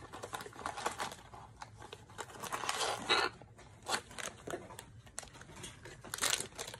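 Rustling, crinkling and light tearing of packaging as a cardboard mystery-mini box and its wrapping are handled and opened, with many small clicks and scrapes.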